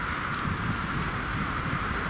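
Bure Valley Railway's No.9, a 15-inch-gauge steam locomotive, approaching slowly in the distance: a low, uneven rumble under a steady hiss.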